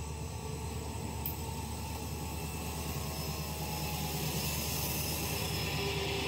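Diesel locomotive rolling slowly past close by, its engine rumbling low and steadily and growing louder as it draws level.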